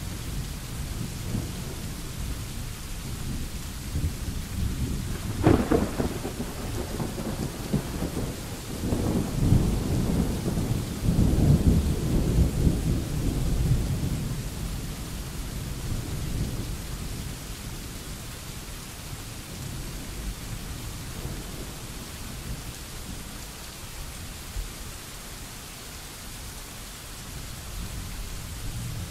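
Steady rain falling, with a sharp thunderclap about five seconds in, followed by long rolling rumbles of thunder that die away over the next several seconds.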